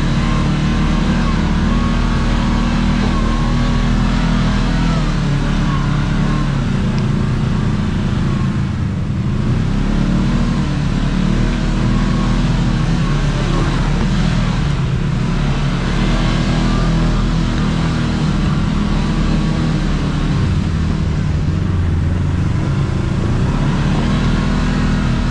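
Kawasaki Teryx KRX 1000 side-by-side's parallel-twin engine running under changing throttle on a trail. It eases off briefly three times and picks up again.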